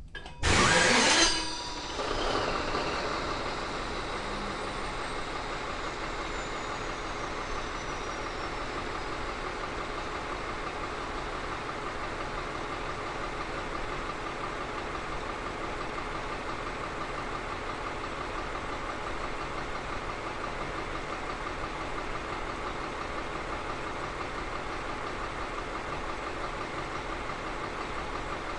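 Caterpillar 3508B V8 twin-turbo diesel on a dynamometer starting up: a loud burst of about a second as it is started, the engine catching about two seconds in, then settling into a steady idle. A faint falling whistle fades out a few seconds after it settles.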